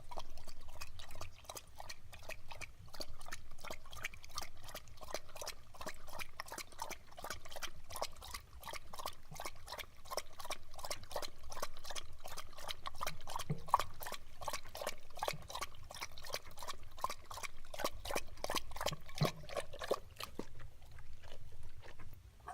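Tortoise drinking water: a quick, even run of gulping, slurping sounds, about four a second.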